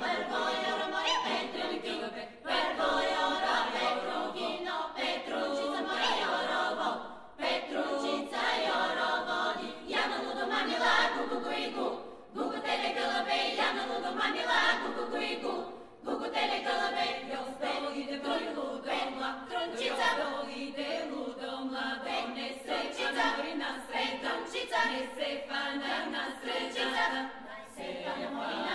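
Background music: an a cappella choir singing, with several voices holding and moving between notes together. The sound is thin, with no bass and no top, like an old recording, and pauses briefly between phrases.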